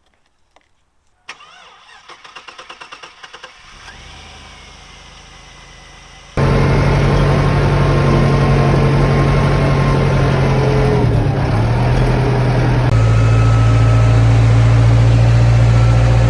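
A Suburban's engine cranked by its starter on a jump from a spare battery for about two seconds, then catching and running. About six seconds in, a much louder engine running steadily starts abruptly and goes on to the end.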